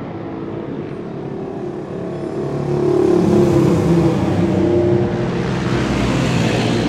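Single-cylinder two-stroke engine of a classic Bultaco racing motorcycle running on its paddock stand. It grows louder about three seconds in as it is revved up a little, then holds steady.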